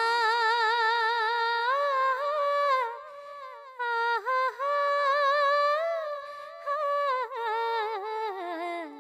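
A single voice humming a slow, wordless melody in long, wavering held notes, with short breaks between phrases.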